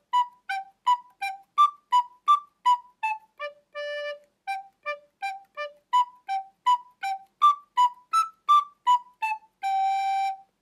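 Background music: a single-line melody of short, detached notes, about three a second, with one longer note about four seconds in, ending on a long held note just before the end.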